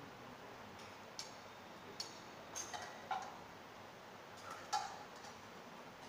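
A handful of light clinks and knocks of dishes, bowls and serving utensils as food is handed into monks' alms bowls, scattered and irregular, the loudest near the end.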